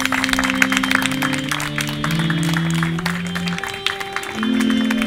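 Accordion playing slow, held chords that change every second or so, with scattered audience clapping over it.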